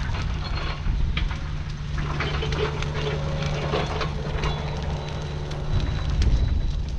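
Mini excavator's diesel engine running steadily, with clicks, knocks and short squeals over it in the middle; the engine note changes near the end.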